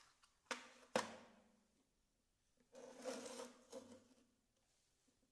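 Two sharp knocks about half a second apart, then a second-long clattering rattle, as the parts of a small toy car are handled during a repair.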